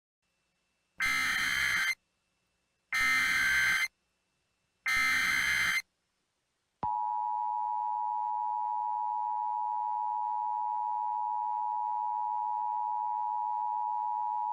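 Emergency Alert System SAME header: three one-second bursts of shrill digital data, a second apart. About seven seconds in, the steady two-tone EAS attention signal starts and holds, the signal that an emergency message is about to follow.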